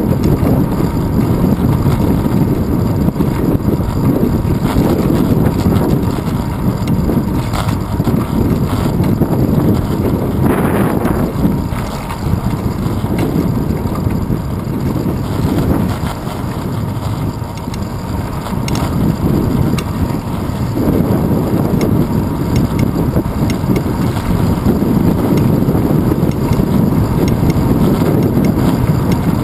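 Wind buffeting the microphone of a handlebar-mounted GoPro Hero 2 on a moving bicycle, a rumbling noise that swells and eases, mixed with road noise and traffic on the street.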